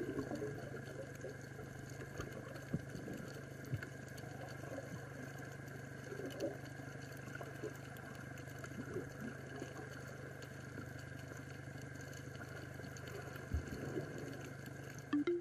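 Underwater ambience picked up by the camera on a reef dive: a steady low hum with scattered small crackles and gurgles of water.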